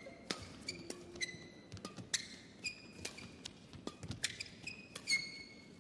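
Badminton rally: repeated sharp pops of rackets striking the shuttlecock and players' footfalls, with short high squeaks of court shoes on the court mat several times.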